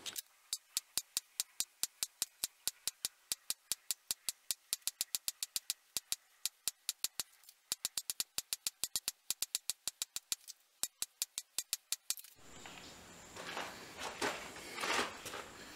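Rapid, even hammer taps on a ball-ended punch, about four or five a second, dimpling a hammered texture into a copper sword guard. The tapping stops near the end, leaving faint handling rustles over a low background hiss.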